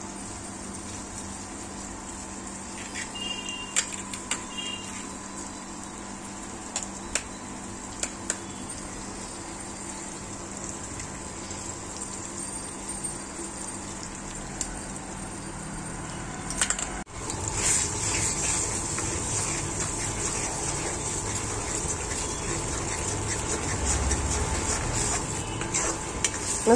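Eggs cooking in a metal pan of hot tomato-onion masala with a steady sizzle, broken by a few light taps early on as eggs are cracked into the pan. About two thirds of the way in it turns louder and busier: a spoon scraping and stirring in the pan as the eggs are scrambled.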